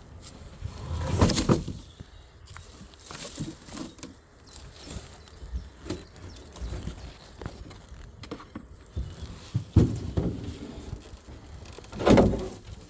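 Wooden beehive boxes and frames being handled: irregular knocks, scrapes and clatter, loudest about a second in, near ten seconds and near the end.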